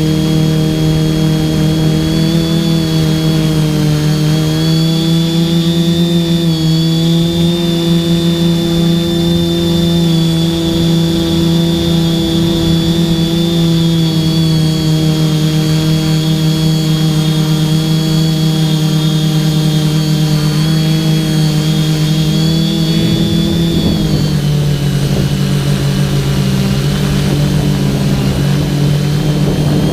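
TBS Discovery quadcopter's electric motors and propellers buzzing steadily at a high pitch, heard from the camera on board the craft. Late on, the pitch drops as the throttle is eased back.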